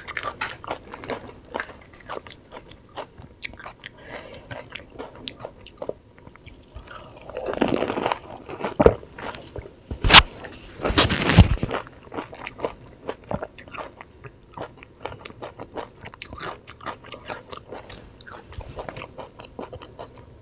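Close-miked chewing of pani puri: crisp fried puri shells crunching and wet chewing with many small irregular clicks. Louder, noisier rushes come about eight seconds in and again about eleven seconds in.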